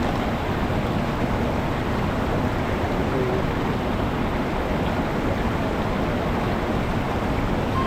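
Sol Duc Falls' water pouring, a loud, steady rush with no breaks.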